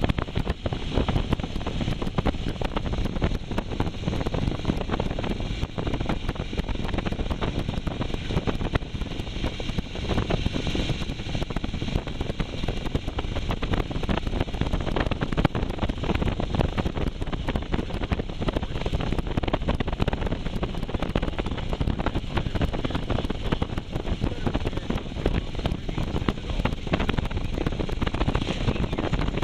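Wind buffeting the microphone on a moving motorcycle, with engine and road noise underneath, holding steady throughout.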